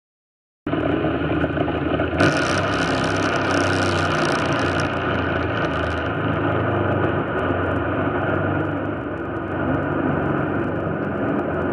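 Top Fuel dragster's supercharged nitromethane-burning V8 running loud, cutting in suddenly out of silence just under a second in. From about two seconds in to about six seconds a harsher, hissing edge rides on top of it.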